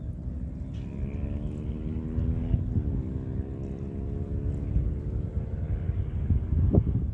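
An engine running with a steady droning hum; its pitch dips and resets about two and a half seconds in. Wind rumbles on the microphone underneath, with a brief louder thump near the end.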